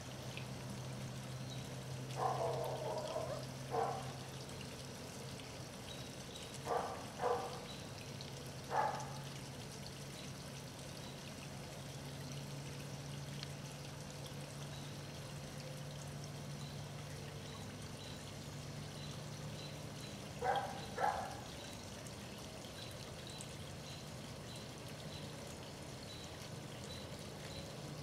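Garden water feature trickling and splashing steadily into a small pond, over a low steady hum. A few short puppy whimpers break in, a pair near 2–4 seconds, two around 7 seconds, one near 9 seconds and two around 21 seconds.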